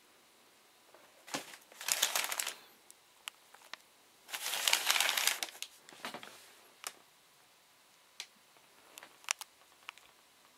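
Tissue wrapping paper in a shoebox crinkling in two bursts, about a second and a half in and again about four and a half seconds in. Scattered light clicks and taps come from the sneakers being handled and set down.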